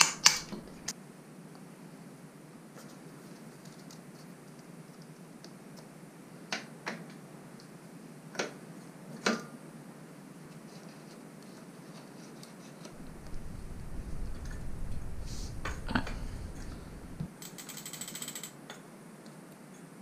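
Scattered clicks and knocks of hand tools on a bicycle's bottom bracket as a pedal-assist sensor is fitted with a hose clamp. The loudest clicks come right at the start, and a low rumble runs for about four seconds past the middle.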